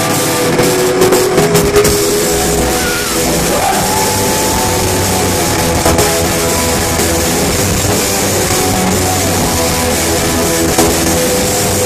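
Live rock band playing loud, with electric guitars, bass and drums; the drum hits stand out most in the first couple of seconds.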